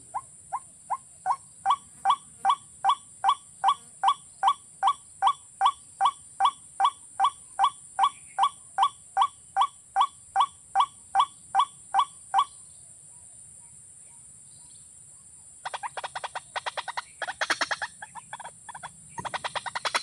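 Watercock calls: a long, even series of short notes, about three a second, which stops about twelve seconds in. From about sixteen seconds a faster, louder run of notes follows. A faint steady high whine sits under it all.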